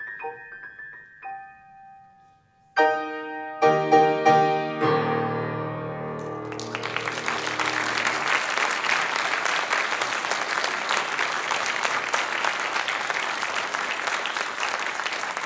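Grand piano finishing a piece: a quick run of notes and a held tone, a short pause, then several loud closing chords, the last one left ringing. Audience applause breaks out about six and a half seconds in and carries on.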